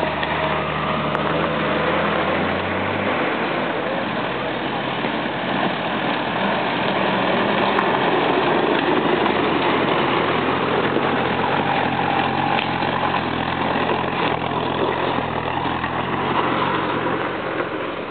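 Engines of off-road 4x4 vehicles driving slowly past close by on a rocky dirt track. A steady low engine note for the first three seconds gives way to engine and tyre noise that eases near the end.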